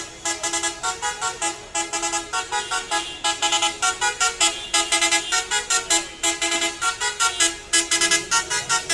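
Background music with a fast, even beat and a changing melody.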